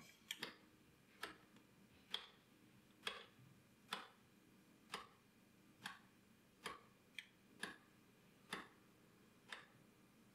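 Elma 47-way rotary switch of a stepped stereo attenuator clicking through its detents one position at a time, about a dozen sharp clicks roughly a second apart.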